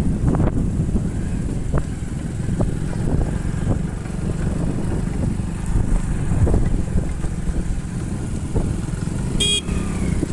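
Hero motorcycle's engine running at a steady cruise with low road rumble, heard from the rider's seat. A horn beeps once, briefly, near the end.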